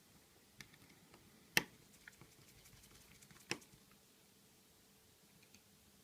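Light clicks and taps of small hand tools and screws on an opened iPhone 5: two sharper clicks, about a second and a half in and again about two seconds later, with faint ticks between.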